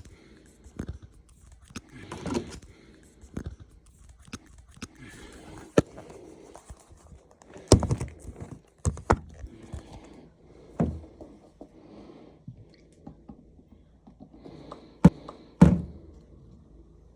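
Handling noises at a washing machine: scattered clicks, knocks and thunks with some soft rustling between them, and two sharp knocks close together near the end.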